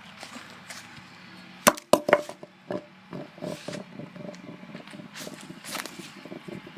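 Rocks thrown at a flip phone, hitting it and the ground with a run of sharp cracks and knocks, the two loudest close together about two seconds in, then lighter knocks.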